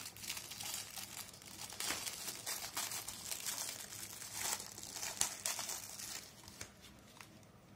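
Thin clear plastic wrapper crinkling and crackling as it is torn open and pulled off a USB wall charger, dying away about six seconds in.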